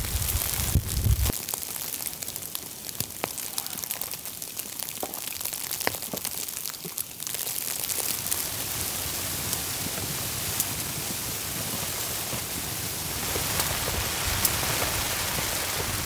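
Rain falling, a steady hiss with scattered sharp ticks; the hiss becomes denser and more even about seven seconds in.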